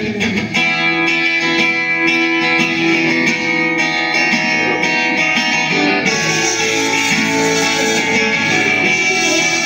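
Acoustic guitar strumming the chords of a song intro, growing brighter about six seconds in.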